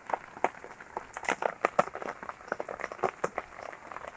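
Raindrops dripping and tapping at random, many small sharp ticks a second over a faint hiss.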